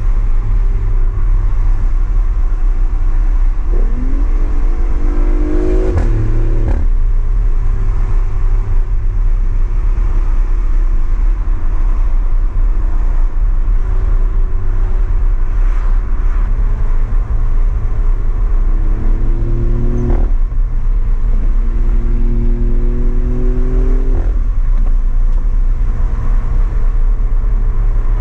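BMW i8's turbocharged three-cylinder engine through a custom exhaust, heard from inside the cabin under a constant low drone. The revs climb and drop at gear changes about six seconds in, and again at about twenty and twenty-four seconds in.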